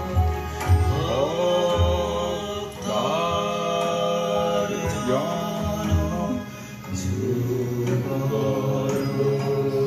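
Devotional chanting, sung over a steady drone, with the voice sliding between notes. A few low thumps sound in the first two seconds.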